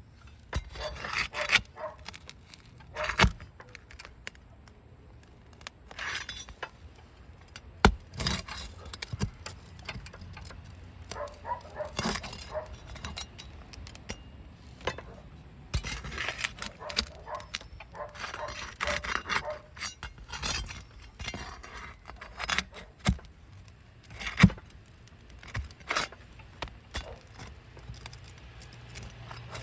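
Metal flat bar scraping and clinking against asphalt shingles and a roofing nail, with a few sharp knocks, as the nail is pried out from under a lifted shingle.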